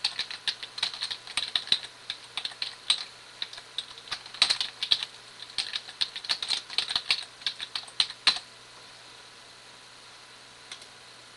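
Computer keyboard typing: quick runs of keystroke clicks that stop about eight seconds in, leaving a faint steady low hum.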